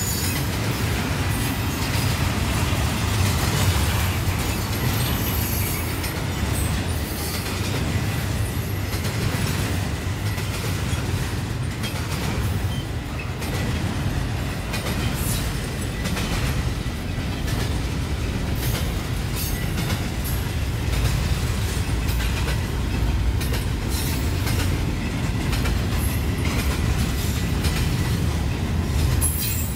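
Double-stack intermodal container train rolling past: a steady low rumble of the well cars' steel wheels on the rails, with scattered brief high squeals and clicks.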